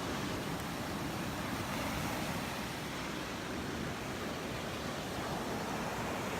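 Surf washing onto a beach, a steady rush of waves mixed with wind.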